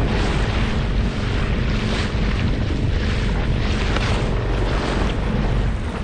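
Small inflatable boat under way: its outboard motor running steadily, with wind noise on the microphone.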